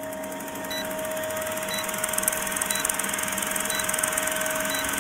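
Old film-projector countdown sound effect: a steady projector whir and clatter with a steady hum and a short high blip about once a second as the numbers count down.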